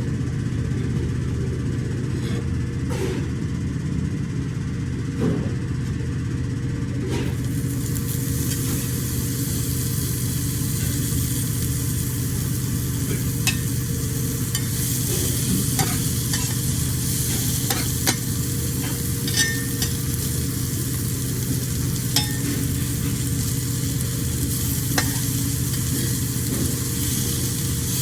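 Seafood sizzling on a hot grill, the hiss setting in about seven seconds in over a steady low hum, with scattered light clicks and taps.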